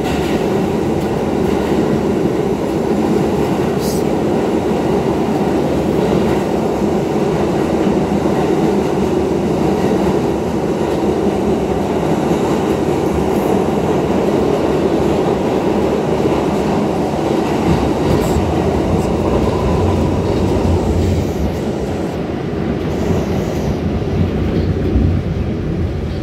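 R68A subway car running through a tunnel, heard from inside the car: a loud, steady rumble and rattle of wheels on track. The noise thins out and drops a little about three quarters of the way through.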